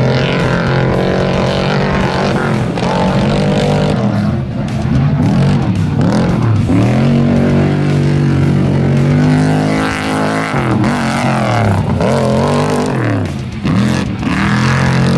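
Rush Truck off-road race truck's engine revving hard under acceleration. Its pitch climbs and falls back several times as it shifts and lifts off through the corners.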